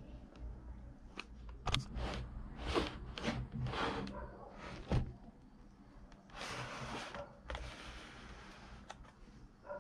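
Cardboard and clear plastic packaging of a two-way radio set being handled and turned: a series of rustles and scrapes, with a sharp knock about five seconds in.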